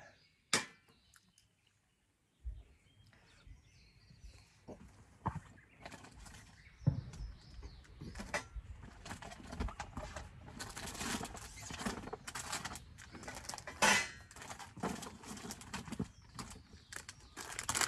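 Rummaging through gear and handling plastic snack packaging: scattered clicks, knocks and rustling crinkles, busiest in the second half with one sharp snap.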